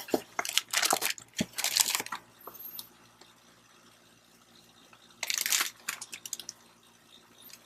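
Box packing material being handled, crinkling and rustling: a cluster of bursts over the first two seconds, then another short burst about five seconds in.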